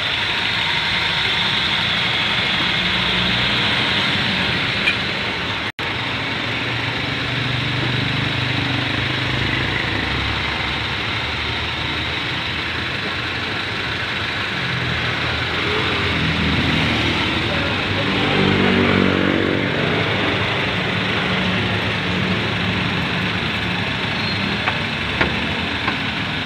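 Third-generation Honda CR-V engine idling steadily with the hood open, while the cooling system is bled of air through a funnel on the newly replaced radiator.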